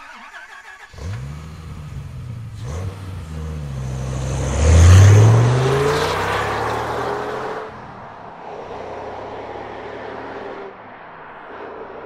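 An engine revving up in several rising pulls, swelling to its loudest about five seconds in, then falling away by about eight seconds and leaving a fainter low hum.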